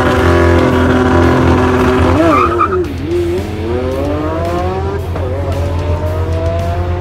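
A high-performance car engine held at high revs, then dipping and climbing steadily in pitch as the car accelerates hard down a runway, with a gear change about five seconds in.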